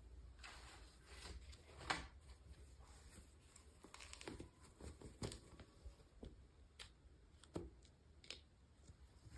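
Faint crinkling and tearing of packaging being handled, with scattered light clicks and taps.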